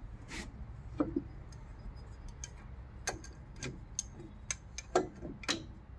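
Irregular light metallic clicks and clinks, about seven in all and the loudest about a second in and near the end, from metal engine parts being handled by hand as the water pump assembly and pulley hub are fitted to a diesel engine block.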